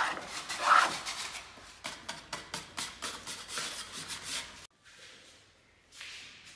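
Pine door frame being sanded by hand: quick, scratchy back-and-forth rubbing strokes that stop abruptly about four and a half seconds in.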